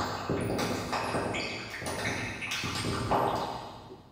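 Electronic pinging tones, layered and ringing, played by hands on a plywood touch board with capacitance sensors. New tones come in about every half second, and the whole sound fades away near the end.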